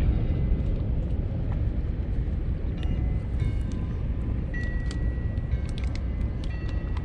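Steady low rumble of wind buffeting the microphone by open water, with faint high chirps and small ticks over it from about three seconds in.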